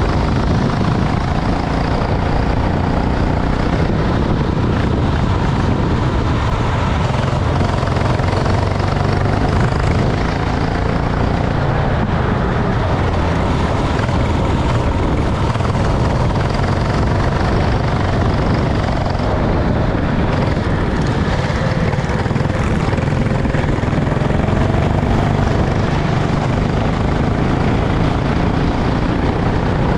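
Racing kart engine running at speed, a constant loud drone whose pitch rises and falls slightly.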